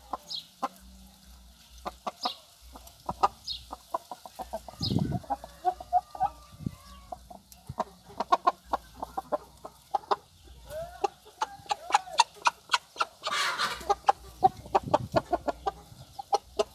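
A six-month-old Pintado-line cockerel clucking in short calls. Many sharp clicks run through it, and a brief rush of noise comes about 13 seconds in.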